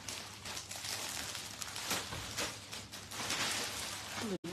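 Dense rustling and crackling noise made of many small ticks close together, with a brief dropout near the end.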